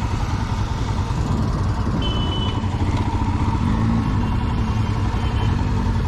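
Motorcycle engine running steadily.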